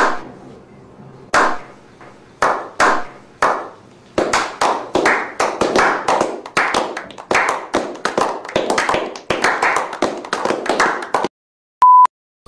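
A slow clap: one person claps slowly, then more hands join and the claps speed up into a crowded round of applause that cuts off suddenly about eleven seconds in. Near the end comes a short, steady test-tone beep.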